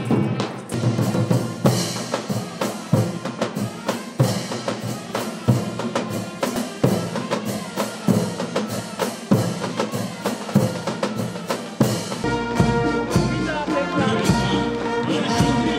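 Ottoman-style mehter band playing a march: a steady beat of drums and cymbals under pitched wind lines. About twelve seconds in, a military brass band takes over with held brass notes and a deep bass.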